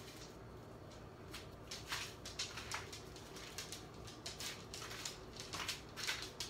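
Irregular light clicks and scratches, several a second: a small dog's claws pattering on a hardwood floor.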